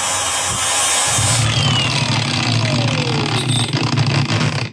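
Cordless angle grinder with a sanding disc scouring the coating off a steel plate so it will weld better. After about a second and a half the disc comes off the work and the grinder spins down with a falling whine, over a low steady hum.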